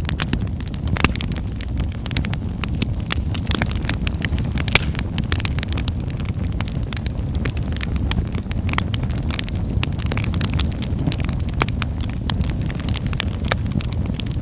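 Wood fire burning in a fireplace: a steady low rumble of the flames with many sharp crackles and pops throughout.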